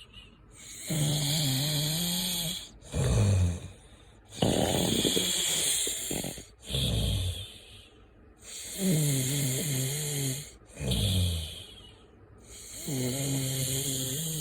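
Someone asleep and snoring in a steady rhythm: about four breaths, each a long, droning snore followed by a shorter, lower-pitched one.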